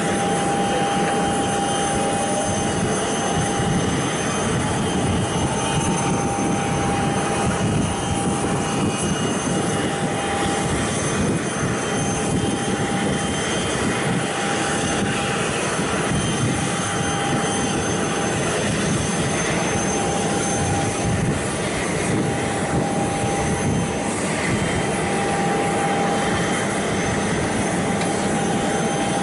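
Jet engine idling on an airport apron: a steady turbine whine over a wide, even rushing noise.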